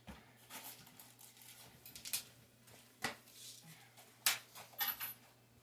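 Scattered sharp taps and clicks, about six over a few seconds, the loudest about four seconds in, from a person moving about on a hard floor.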